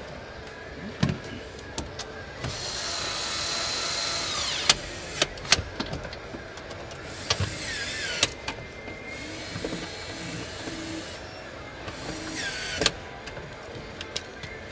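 A power tool running in four short bursts, the first with a high whine that falls in pitch as it winds down, mixed with sharp clicks and knocks of parts being fitted; the loudest knocks come about five seconds in.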